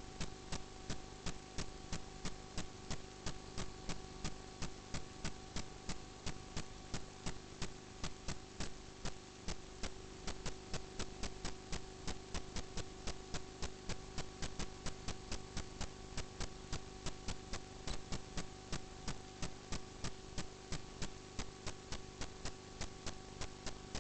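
Steady electrical hum with a fast, even ticking, about three or four ticks a second, from drain inspection camera equipment.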